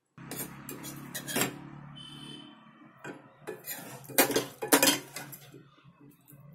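A steel spoon scraping and clinking against a cooking pot and a serving dish as stuffed brinjals in gravy are scooped out. There are several sharp clinks, the loudest about four to five seconds in, over a low steady hum.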